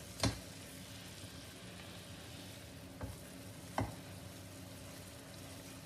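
Sugar syrup boiling in a nonstick pan, a steady bubbling hiss, while a spatula stirs it. The spatula knocks against the pan three times, once near the start and twice close together a little past halfway.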